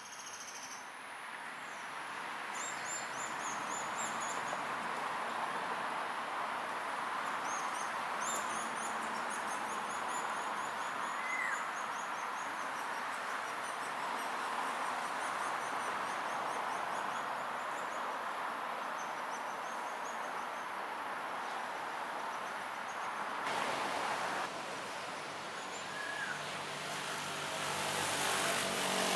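Steady background traffic noise, with series of short, high, thin bird calls repeated in quick runs through the first third. Near the end the noise swells.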